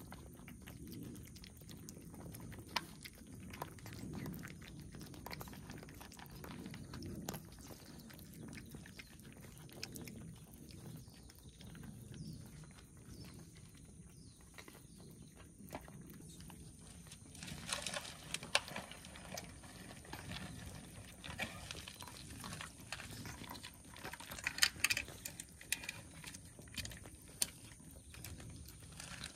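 Cats eating, with irregular small clicking and crunching sounds that come thicker about two-thirds of the way in and again near the end.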